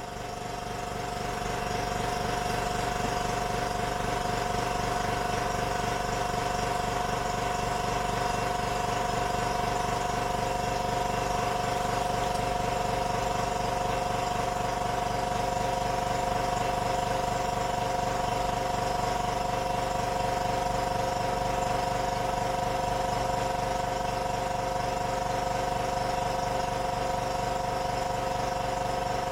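Hydraulic press's motor and pump running steadily with a constant whine, rising to full level over the first couple of seconds.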